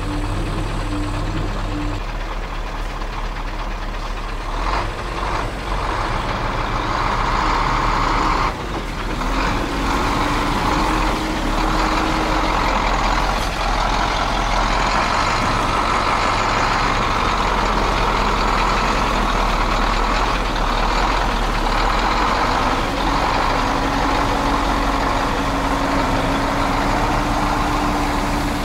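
KAMAZ 6x6 truck's diesel engine running under load while towing on a cable, its pitch rising now and then as it is revved.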